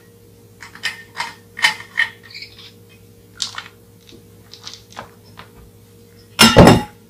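Light clicks and knocks of a drink bottle being handled, then, about six and a half seconds in, a loud half-second clatter as the bottle falls onto the wooden floor.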